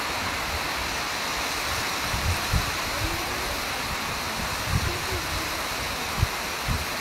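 Heavy monsoon rain falling in a steady hiss, with a few brief low thumps.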